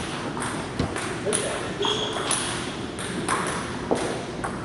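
Irregular sharp ticks of table tennis balls bouncing off tables and bats in a gym hall, over background chatter. A brief high squeak about two seconds in.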